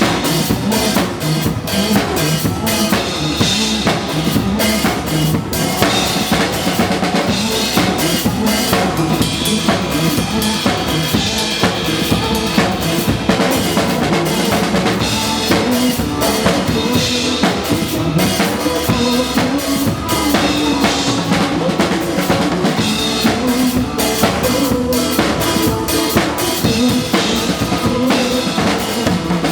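Drum kit played live through a busy groove, with bass drum, snare and rimshot strokes throughout, over the pitched backing music of a pop song.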